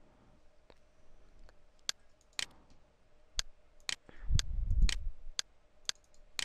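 Computer mouse clicking: a series of sharp, short clicks, about two a second through the second half, with a low rumble a little past the middle.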